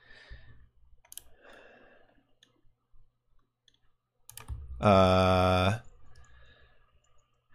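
A few faint clicks from a computer keyboard and mouse. About five seconds in, a man's voice holds one steady pitched sound for about a second, a wordless thinking noise.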